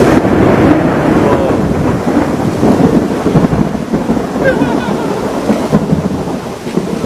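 Thunderstorm: heavy rain with a loud, continuous rumble that rises and falls in level.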